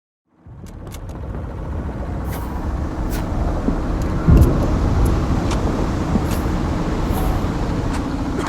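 Sound-designed WW2 battle ambience fading in from silence about half a second in: a heavy engine running steadily under scattered sharp cracks of distant gunfire, with one louder thud about four seconds in.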